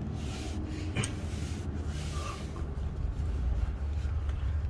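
Cloth rag rubbing in short hissy strokes, wiping residual oil, over a steady low rumble, with one sharp click about a second in.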